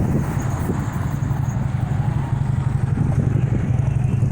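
Double-stack freight train rolling past, a steady, rough low rumble.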